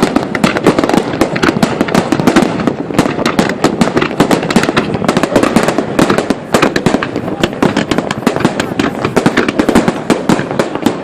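Fireworks display: a dense, continuous string of bangs and crackles, many per second, with no break.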